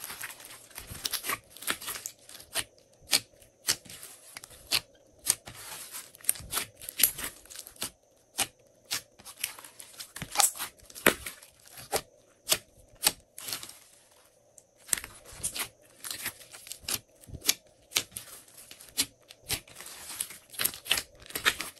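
Glossy slime being kneaded, pressed and stretched by hand, giving an irregular string of sharp, sticky clicks and pops with crackling between them and a couple of brief lulls.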